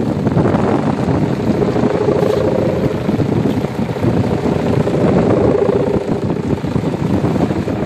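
Two sendaren kite hummers, mica ribbons stretched on bamboo bows, droning together in the wind: a steady, rapidly pulsing buzz held on one pitch.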